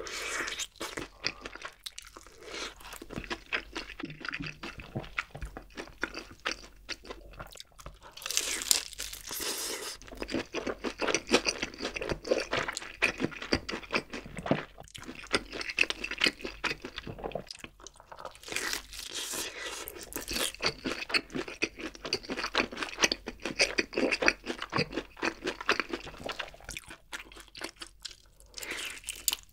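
Close-miked crunching and chewing of crispy fried chicken: bites through the battered crust of a fried drumstick and crackly chewing, running almost without a break with a few short pauses.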